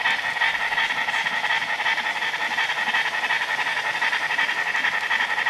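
Sound-equipped H0-scale model steam locomotive running at high speed, its sound system giving a steady rush of steam exhaust.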